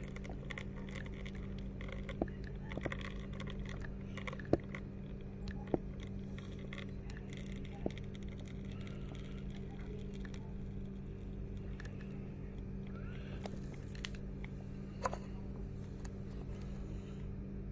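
Espresso machine pump humming steadily while the shot pours from the portafilter into a ceramic cup, with a few sharp ticks scattered through it.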